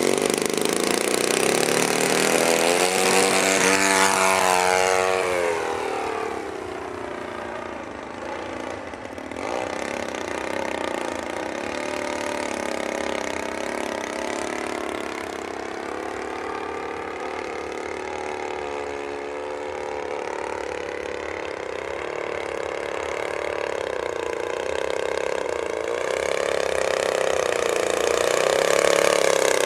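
RCGF-62 gasoline engine of a Ca Models Edge 540 radio-controlled aerobatic plane run up to full throttle for takeoff, its pitch climbing, then falling and fading as the plane passes and pulls away. Through the rest, the engine note rises and falls with the throttle and the manoeuvres, and it grows louder near the end as the plane comes back low.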